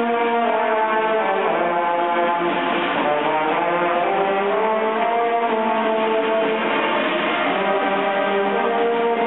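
Marching brass band playing a melody of long held notes over sustained chords.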